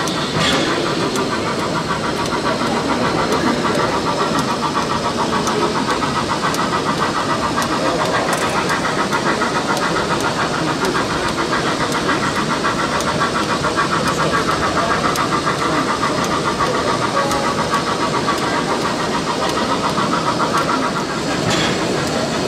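Model train running on a layout: a steady, fast mechanical pulsing over constant background noise, with a few faint clicks.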